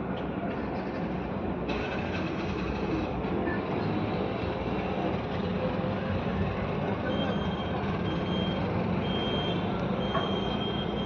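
Steady mechanical running noise with a low hum, consistent with a split AC unit running. About two-thirds of the way in, a series of short high-pitched beeps starts and repeats a few times.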